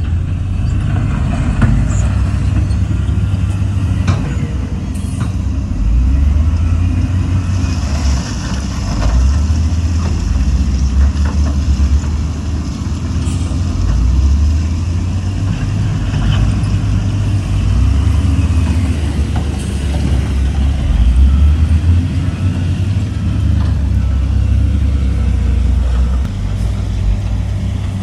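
Heavy diesel engine of earthmoving machinery running loud and continuously, its engine speed rising and falling every few seconds.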